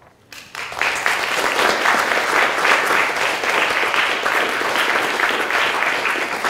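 Audience applauding, many hands clapping together; it starts about half a second in after a brief quiet and holds steady.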